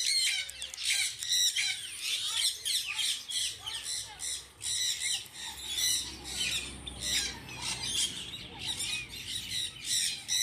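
Many parrots in an aviary calling at once: a constant din of short overlapping squawks, several a second.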